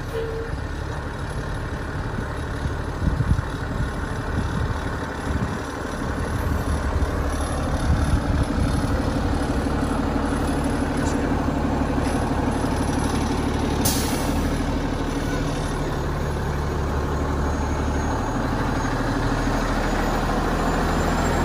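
Diesel engine of a Vactor 2100 sewer-cleaning vacuum truck running steadily, stepping up a little about seven seconds in and then holding. A brief hiss about fourteen seconds in.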